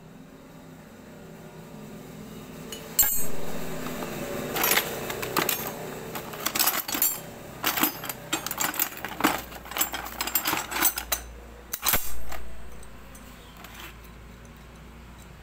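Small metal parts and hand tools clinking and clattering against each other: a run of sharp clicks and knocks from about three seconds in until about twelve seconds.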